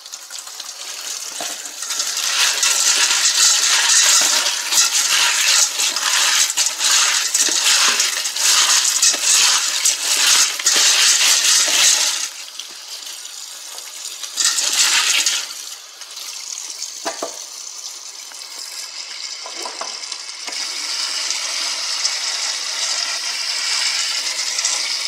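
Kitchen tap running onto dried beans in a stainless-steel colander while a hand stirs them to rinse them. The water splashes loudly for about the first twelve seconds, then settles to a softer, steady flow.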